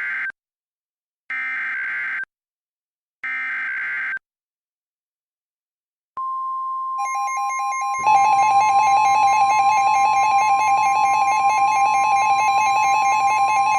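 Emergency Alert System data-burst header: about second-long bursts of screeching tones, a second apart, ending about 4 s in. After a pause comes a steady high attention tone, which a second, harsher and louder buzzing alarm tone joins and keeps on until near the end. It signals the start of a new tornado emergency alert.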